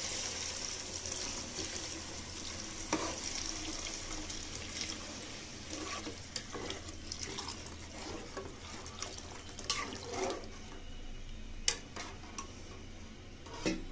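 Thickened milk being poured in a steady stream into a hot aluminium pot of grated carrots fried in ghee. A spoon stirring the mixture clicks against the pot a few times in the second half.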